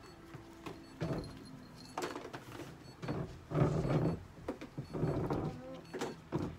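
Brushing a cat's fur: a series of noisy brush strokes about a second apart, with small knocks and handling noise.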